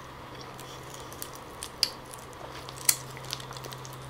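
Quiet close-miked eating of soft wild jackfruit flesh: soft chewing and wet mouth sounds, broken by a few short, sharp clicks, over a steady low hum.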